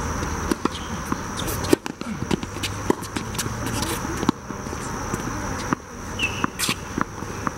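Tennis balls struck with rackets and bouncing on a hard court: sharp knocks about every second, the loudest a little under two seconds in, over a steady high drone of insects.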